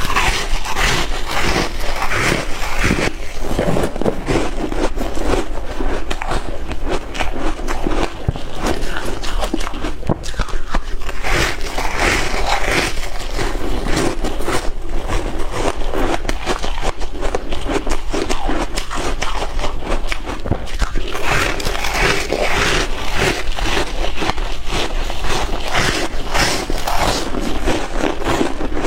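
Close-miked chewing of shaved ice: a continuous, dense crunching and crackling of ice being bitten and ground between the teeth.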